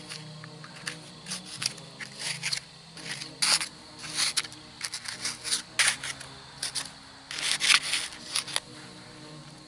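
Small metal hand trowel scraping and digging through packed dirt, in a string of irregular scrapes. The scrapes are strongest about a third of the way in and again near the end, then stop.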